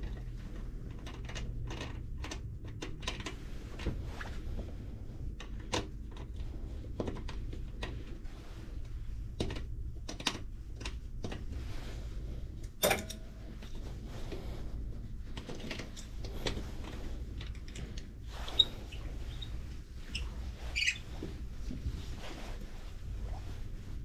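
Small metal clicks and taps as a part is handled and fitted into a steel three-jaw chuck, with a sharper metal knock about 13 seconds in and another about 18 seconds in. A steady low hum runs underneath.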